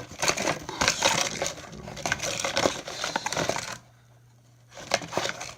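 Hands rummaging through plastic-packaged fishing lures in a box: packaging crinkling and clicking, stopping about four seconds in, with one more short rattle near the end.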